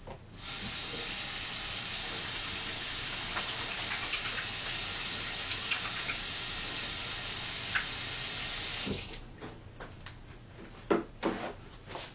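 Kitchen faucet running steadily, water splashing into a stainless steel sink as hands are washed under the stream. The tap is shut off about nine seconds in, followed by a few light knocks.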